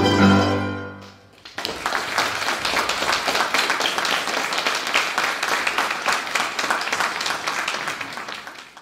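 The final chord of a domra ensemble with piano rings and dies away in the first second. Then an audience applauds steadily, fading near the end.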